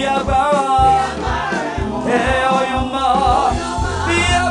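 Gospel praise-and-worship song: voices sing a wavering melody over band accompaniment with a steady beat.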